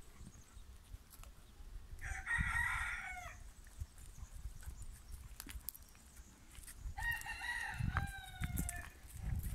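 Rooster crowing twice, about two seconds in and again about seven seconds in. Each crow ends on a long, slightly falling note.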